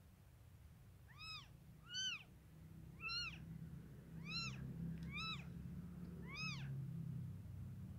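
Newborn kittens crying: six short, high-pitched mews, each rising and falling in pitch, spaced about a second apart.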